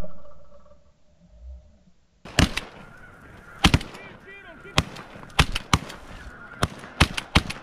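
A shotgun report dies away in the first second. About two seconds in, a large flock of snow geese starts calling overhead: a dense, irregular clamour of sharp, high honks.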